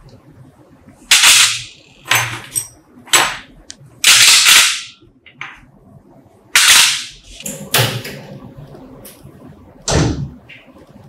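Small metal parts of a vintage scale being set down and dropped into a stainless steel parts tray: a series of about eight sharp metallic clanks, some with a short ringing tail. A final knock comes near the end.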